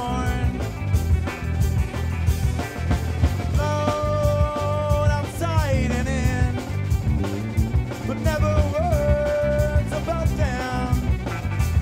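Live band playing a fast song with drum kit, bass, guitar, banjo and violin. A lead line holds long notes, slides down in pitch about five seconds in, and holds again from about eight seconds.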